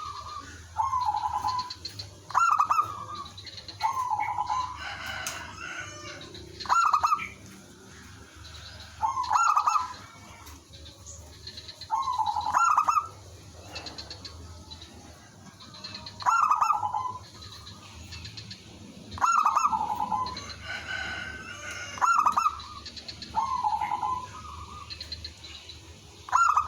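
Zebra doves singing: short phrases of rapid stuttering coos repeat every two to three seconds, a slightly higher phrase alternating with a lower one as birds answer each other.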